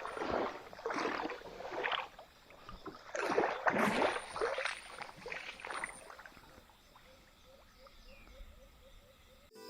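Water splashing in a river, a series of splashes about once a second that die away after about six seconds, leaving faint trickling.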